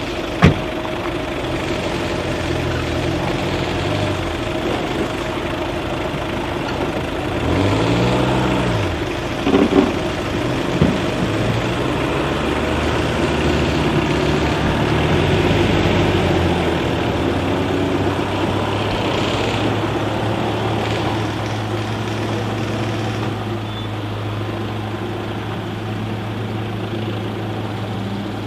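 Motor vehicle engine running steadily, revving up and back down about eight seconds in. A sharp click comes just after the start, and a few knocks come around ten seconds in.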